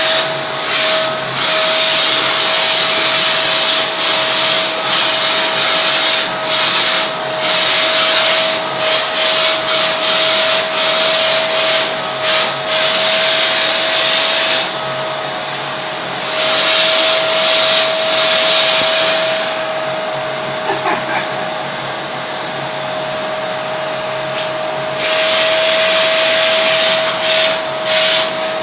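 Vacuum cleaner running steadily, its motor tone constant while the hiss of air through the hose repeatedly drops and returns, with a longer muffled stretch past the middle, as the nozzle is worked over a vizsla's short coat.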